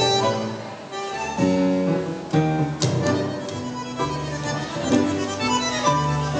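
Tango orchestra playing live, with double bass and piano: sustained melodic notes over a bass line, with a sharp accented chord about three seconds in.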